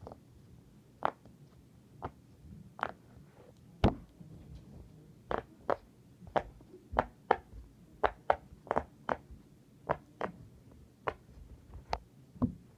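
Silicone pop it fidget toy, its bubbles pressed one after another, each giving a short soft pop. The pops come at an uneven pace, about two a second.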